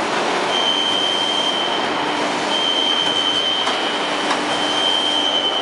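Hydraulic riveting machine working: a steady mechanical din with a high whine that sounds three times, each for about a second, and a few sharp clicks.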